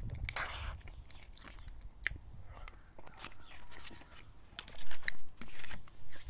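Close-up chewing and mouth noises of a person eating a forkful of saucy Mexican takeout food, with small clicks throughout and a few louder mouth sounds about five seconds in.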